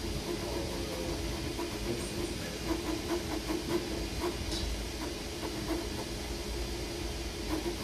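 Creality Ender-3 V3 KE 3D printer running a print: a steady fan hiss, with a low stepper-motor tone that comes and goes in short irregular pulses as the print head moves.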